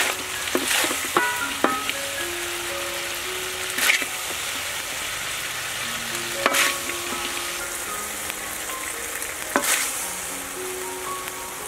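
Chicken pieces sizzling in a wok, stirred with a wooden spatula that scrapes across the pan every few seconds.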